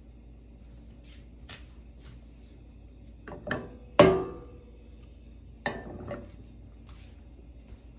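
Nonstick frying pan clanking against a gas stove's cast-iron grate as it is lifted, tilted to spread the heating oil, and set back down. There are a few knocks, and the loudest, about halfway through, rings briefly.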